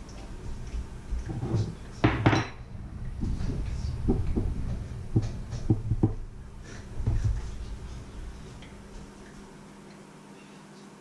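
Metal kitchenware clattering: a run of irregular clinks and knocks, the loudest about two seconds in, with a metal spoon set down on the wooden counter. The clatter dies away after about seven seconds.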